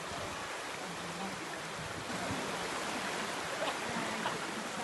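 Steady rushing of flowing water, an even hiss with no rhythm.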